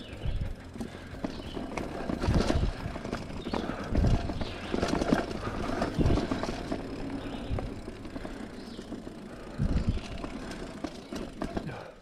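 Mountain bike ridden over a dirt singletrack: tyre noise on the dirt and rattling of the bike, with scattered heavy low thumps, the strongest about two, four, six and ten seconds in.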